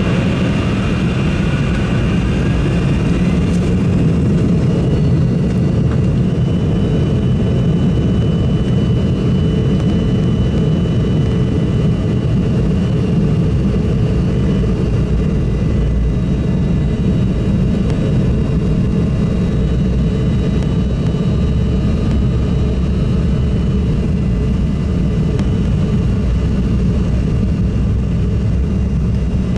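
Embraer 175's GE CF34 turbofan engines heard from inside the cabin: a whine rising over the first few seconds, then steady loud running as the jet rolls along.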